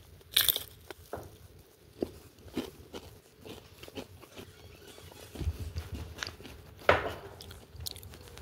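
A person biting and chewing a mouthful of stir-fry close to the microphone: irregular short, sharp mouth and chewing noises, the loudest about half a second in and again near the end.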